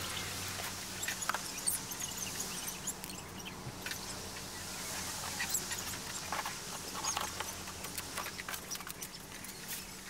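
Plastic wrapping and cardboard rustling and crinkling as a roll of ceramic fibre blanket is pulled out of its box and handled, with many small scattered clicks.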